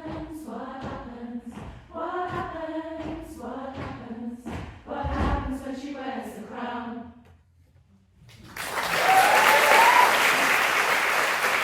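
Upper-voices chamber choir singing a final run of short, separated sung chords that end about seven seconds in. After a brief silence, audience applause breaks out and carries on.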